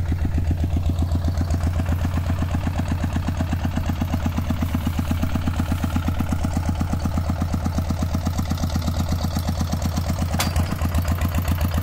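Two-wheel walking tractor's single-cylinder diesel engine running steadily with an even, rapid beat. Near the end there is one sharp click, after which the engine runs a little louder.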